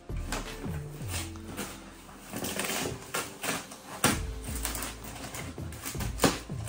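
A cardboard shipping box being opened by hand, with its flaps and the paper packing slip rustling and crinkling, and two sharp knocks of cardboard, about four seconds in and again near the end.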